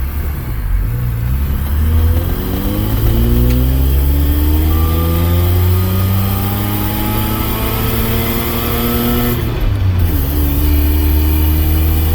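Vehicle engine pulling under load, its pitch rising steadily for about eight seconds, dropping briefly near the end as a gear changes, then climbing again. It is down on power, and the owner says it sounds like the ignition timing isn't advancing.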